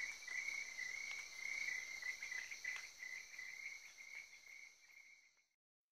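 Insects chirping in a steady chorus, a pulsing high chirp over a higher continuous buzz, fading out about five seconds in.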